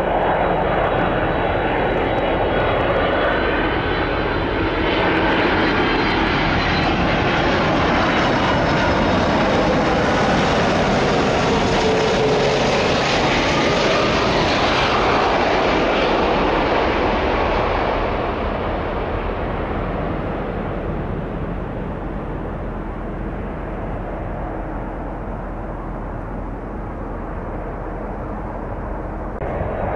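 Boeing 767-300ER airliner's twin jet engines running on a landing approach as it flies past. A whine glides down in pitch as it passes, and the sound is loudest mid-way, then drops off over the last third.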